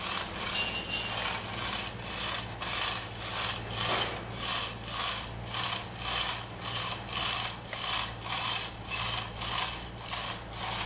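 Mechanical ratcheting in steady, even strokes, a little under two a second, over a low steady hum.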